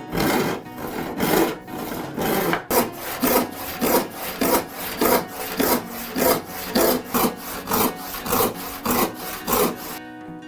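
Hand tool working wood in quick, even back-and-forth strokes, about two to three a second, stopping near the end.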